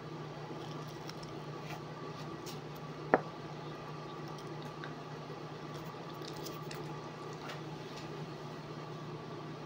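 A person chewing a mouthful of flatbread and chicken, with faint wet mouth clicks over a steady background hum. A single sharp click sounds about three seconds in.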